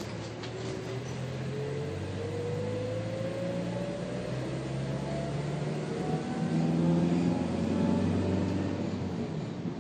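Engine and drivetrain of a road vehicle heard from inside the cabin while it accelerates: a low hum with a whine that rises steadily in pitch over about eight seconds, getting louder toward the end.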